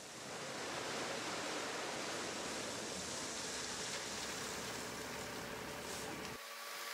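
Crushed stone sliding out of a tipped dump-truck bed, a steady rushing hiss that cuts off suddenly near the end.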